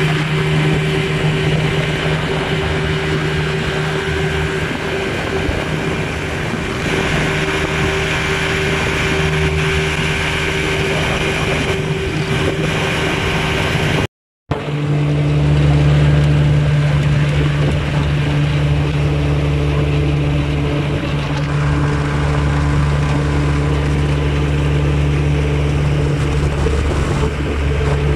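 Vikhr-25 two-stroke outboard motor running steadily at speed on an aluminium Kazanka boat, over a rush of wind and water. The sound cuts out for an instant about halfway, then the motor runs on with a deeper hum.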